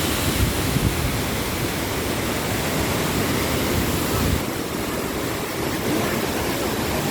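Wahkeena Falls rushing steadily, a dense, even roar of falling water.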